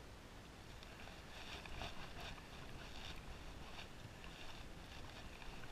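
Faint wind and water lapping against a small fishing boat, with a few soft, irregular ticks and splashes between about one and three seconds in.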